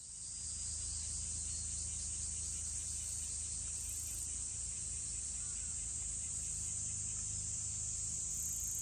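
Steady high-pitched chorus of summer insects droning without a break, over a faint low steady rumble.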